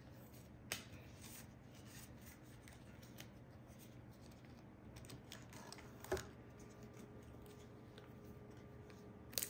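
Faint clicks and light taps of trading cards being handled and set down on a table, with a sharper click about a second in and another about six seconds in.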